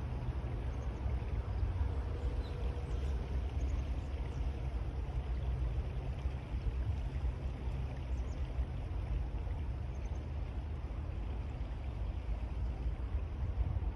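Steady low rumble of wind on the microphone, with an even hiss of water running through a partly iced-over stream.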